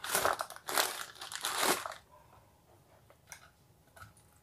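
Crispy fried chicken crunching close to a lapel microphone: three loud crunches in the first two seconds, then two faint clicks.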